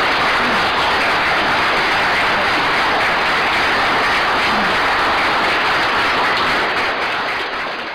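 Audience applauding, many hands clapping steadily, starting to die down near the end.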